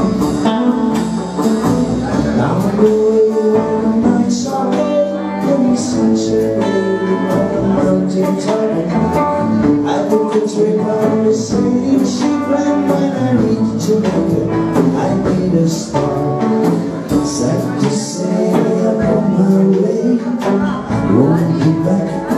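Live rock band playing a song: two electric guitars, electric bass and drums, with sung vocals.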